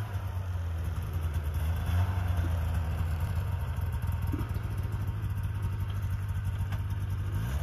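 Snowmobile engine idling steadily with a low, even hum.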